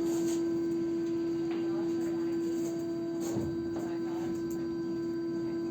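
A steady, unchanging hum at one pitch, with fainter higher tones above it, and a brief low sound about three and a half seconds in.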